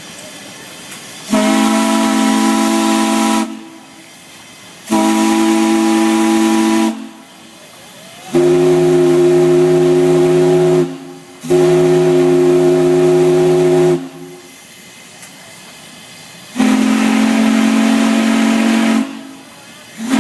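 Steam whistles blown in a series of chord blasts, each about two seconds long: five in all, with a sixth starting at the very end. The third and fourth blasts sound a lower chord than the others. A steady hiss carries on between the blasts.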